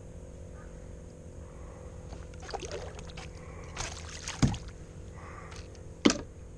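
A small tarpon splashing and thrashing beside a kayak as it is brought in, with two sharp slaps about four and a half and six seconds in.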